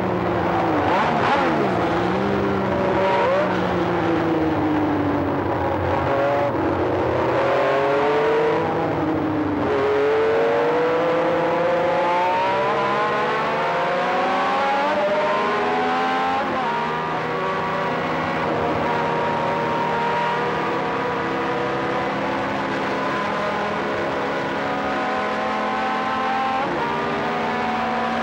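Matra V12 engine of a 1978 Ligier Formula 1 car heard onboard at racing speed. Its revs fall over the first few seconds, climb steeply again about ten seconds in, and then hold high with small dips at gear changes.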